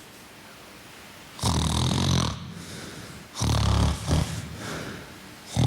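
A person snoring in an even rhythm, about one snore every two seconds, each less than a second long, with no pauses in the breathing. This is the regular, uncomplicated kind of snoring, a sign that the airway has narrowed.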